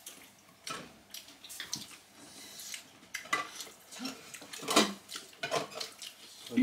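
Dishes and utensils clinking and knocking, among them a rice paddle scraping and tapping in an electric rice cooker's inner pot as rice is scooped out. The knocks come irregularly, the loudest a little under five seconds in.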